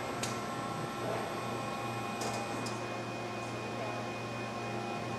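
Toyoda GL6 CNC cylindrical grinding cell running: a steady machine hum with several steady tones, and a few light clicks near the start and around the middle.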